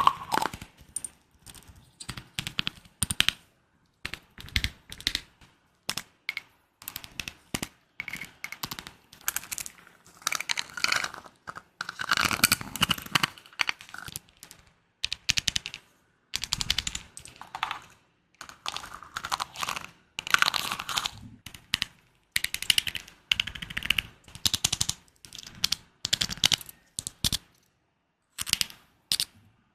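ASMR trigger sounds: quick runs of close-miked tapping and clicking in short bursts with brief gaps between them.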